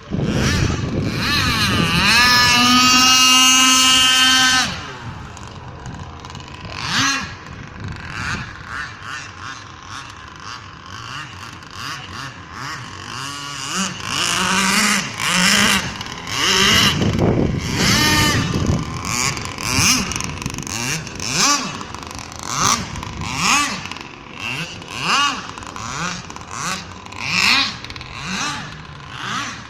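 A fast boat's engine at high revs. Its pitch climbs steadily for the first four or five seconds, then it drops in level and swings rapidly up and down in pitch, over and over, for the rest of the time.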